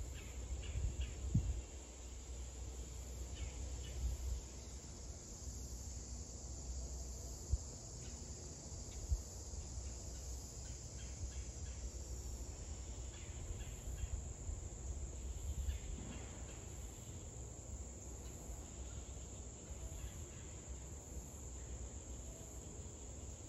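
Steady high-pitched drone of insects in the yard, over a low rumble, with a few faint knocks.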